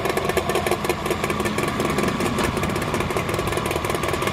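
A small boat's engine idling beside the dock, a steady, fast, even pulsing.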